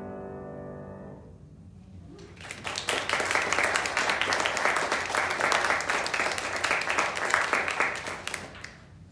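An upright piano's last chord rings and fades away, then a small audience claps for about six seconds before the clapping dies down near the end.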